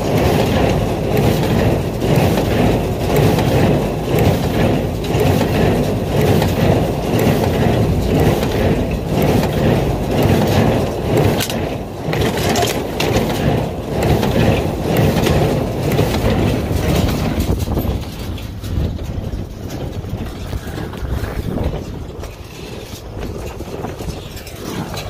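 Tractor pulling a Massey Ferguson 124 square baler in the field: engine and baler running together with a regular beat about once a second. It gets somewhat quieter about three-quarters of the way through.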